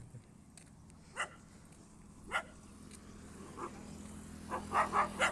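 Street dogs barking: a few separate barks, then a quick run of louder barks near the end.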